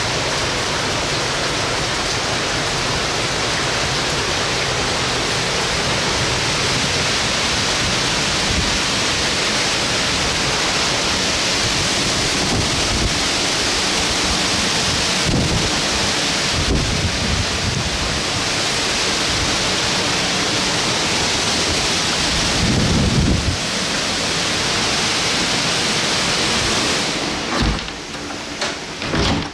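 Hurricane wind and heavy rain: a steady loud rush of noise, with gusts buffeting the microphone in low rumbles. Near the end it drops off sharply, with a few knocks.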